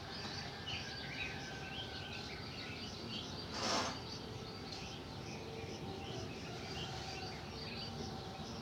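Outdoor background of birds chirping in short scattered calls over a steady hiss of ambient noise. About three and a half seconds in, a brief rustle sounds close by as the cat moves past.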